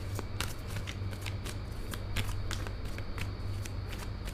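Tarot deck being shuffled by hand, a run of quick papery card flicks about three a second, over a steady low hum.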